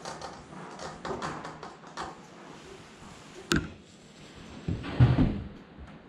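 Metal parts of a hydraulic ram being handled as an end cap is fitted and turned onto the ram rod: light clicking and scraping, a single sharp click about three and a half seconds in, then a heavier knocking around five seconds in.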